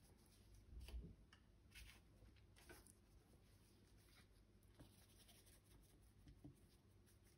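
Near silence, with a few faint, short scratches of a paintbrush working oil paint: mixing on the palette and flicking upward strokes onto the canvas.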